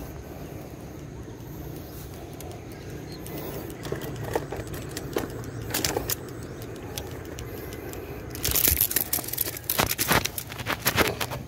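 Rustling and crackling as a freshly hooked fish is hauled out onto the grassy, muddy bank and grabbed by hand, with scattered clicks at first and a dense run of sharp crackles over the last three seconds.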